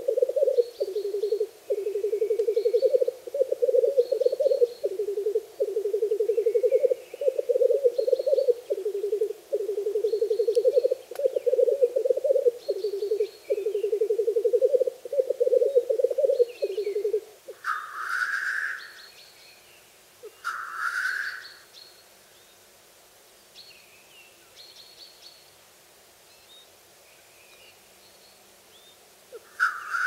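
Male black grouse lekking: a continuous low bubbling 'rookooing' courtship song with a fast pulsing rhythm, which stops about seventeen seconds in. Then come two loud hissing 'sneeze' calls a few seconds apart, and a third at the very end, with small birds chirping faintly throughout.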